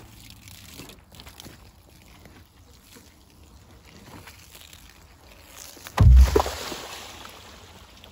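A plastic barrel full of dirty wash water tipped over onto the ground about six seconds in: a sudden heavy thud, then water gushing and splashing out and fading over a second or two. Before that there are only faint handling sounds.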